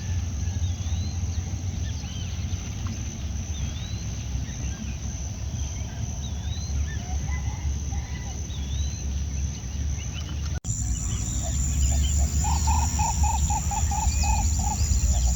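Wild birds calling with short chirps over a steady high insect drone and a low rumble. After a cut about ten seconds in, one bird gives a quick series of about nine repeated notes.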